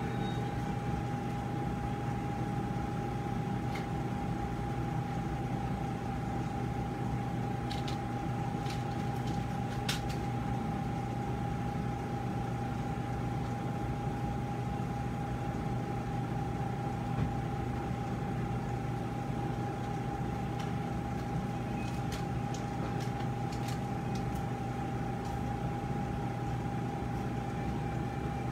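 Steady machine hum of operating-room equipment, with a constant mid-pitched tone over a low drone. A few faint clicks of metal surgical instruments come through, a handful around the middle and more near the end.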